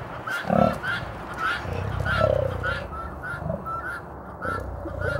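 Male lion vocalizing: a series of deep, pulsing grunt-moans, each lasting from half a second to over a second. A short high chirp repeats about twice a second behind them.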